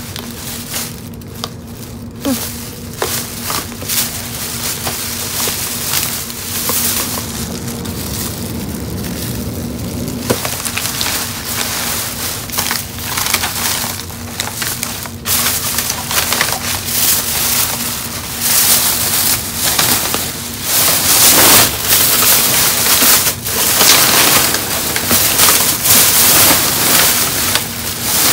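Plastic trash bags rustling and crinkling as a gloved hand digs through them, with boxes and items shifting. It gets louder and busier about halfway through.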